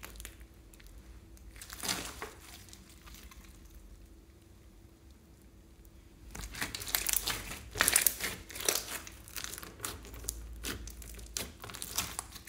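Clear slime loaded with glitter and beads being pressed, stretched and poked by hand: sticky crackling and popping. A short burst comes about two seconds in, it goes quieter for a few seconds, then dense crackling fills the second half.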